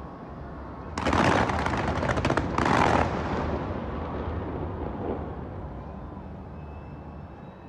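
Fireworks going off: a loud, dense crackling volley starts about a second in, breaks briefly, comes back in a second short burst, then fades away over the next two seconds.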